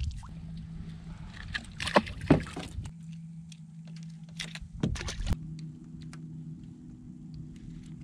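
Small fishing boat sitting on the water: a steady low hum throughout, with water sloshing and a few sharp knocks and clatters, the loudest about two seconds in and again near five seconds.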